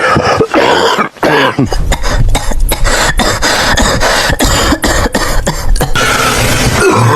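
A person performing a string of exaggerated, theatrical coughs: a few breathy coughs, then a fast run of short sharp ones, ending in a long rasping exhale.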